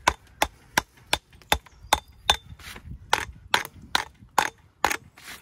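Steel walling hammer tapping repeatedly on a sandstone walling stone, about three sharp knocks a second, knocking off the mud. The knocks stop about a second before the end.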